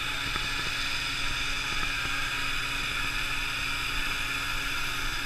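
Komo VR 825TG three-axis CNC router running, giving a steady whirring hum with an even hiss over it.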